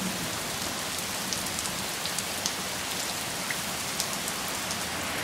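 Storm downpour of rain and hail: a steady hiss with scattered sharp ticks of drops and stones striking.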